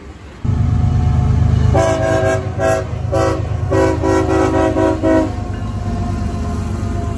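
Diesel freight locomotive passing close with its engine rumbling and its air horn sounding a quick series of short blasts. The rumble starts suddenly about half a second in, and the horn stops a little after the middle.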